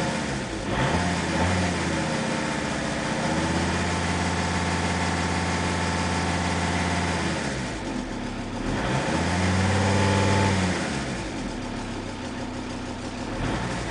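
Audi A6's 2.5 TDI AEL five-cylinder turbodiesel revved twice: held up for several seconds, dropped back, briefly revved again, then let fall back toward idle. The engine has a ticking that the owner first took for a valve lifter or a broken valve spring. The cause turned out to be a damaged key on the crankshaft timing-belt sprocket, which left the cam 6–8 degrees advanced so the inlet valves touched the pistons.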